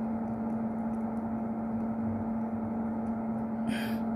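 A steady hum with one constant low tone over an even, fan-like noise. A brief hiss comes near the end.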